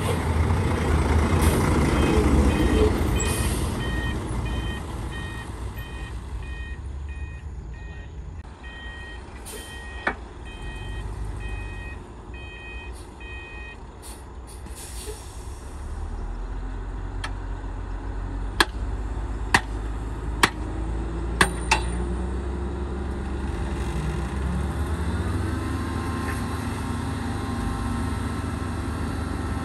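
Heavy diesel dump truck engines running. A reversing beeper repeats steadily for about twelve seconds as a loaded dump truck backs up. A handful of sharp metallic clanks follow, then the engine revs up and its pitch rises as the tipper bed starts to lift.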